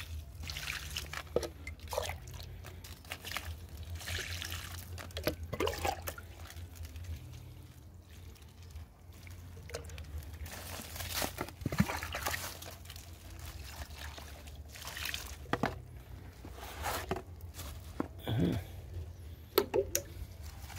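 Diluted root-stimulant solution poured from a small can onto the soil of potted saplings, several separate pours that splash and trickle into the mulch, with a few sharp knocks from handling the can.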